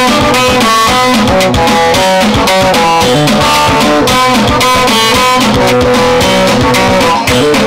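Amplified Borana guitar music played through a loudspeaker: a quick-picked guitar melody over bass and a steady beat.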